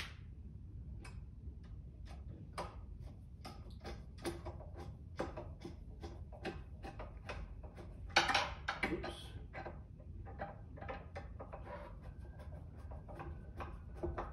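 Screw being driven by hand with a screwdriver, fastening a wooden cross bar to a metal tube: a run of small irregular clicks and creaks, about two a second, with a louder scraping rasp about eight seconds in.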